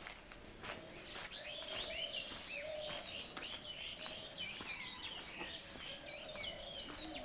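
Small birds chirping and twittering in a busy chorus of quick rising and falling notes, with a lower call repeating underneath.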